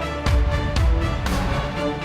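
Background music with a steady beat, about two hits a second, over sustained tones.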